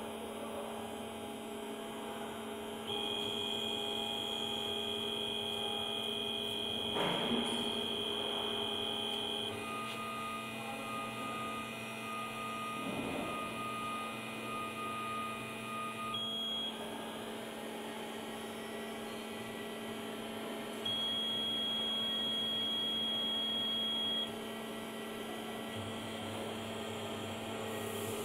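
CNC hot-wire foam cutting machine running a cut: a steady electrical hum, with high-pitched motor whines from the wire drives that start and stop several times, each at a different pitch as the wire changes direction.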